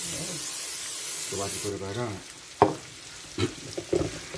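Steak sizzling on the hot plate of an electric waffle maker. The sizzle cuts off sharply about one and a half seconds in, and a single sharp click comes about a second later.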